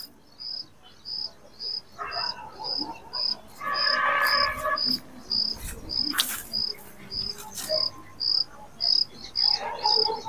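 A cricket chirping steadily, short high chirps about two a second. A brief lower call sounds about four seconds in.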